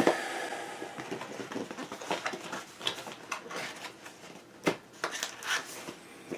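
Cardboard model boxes and papers being handled: rustling and light taps, with a sharp knock right at the start and another about two-thirds of the way through.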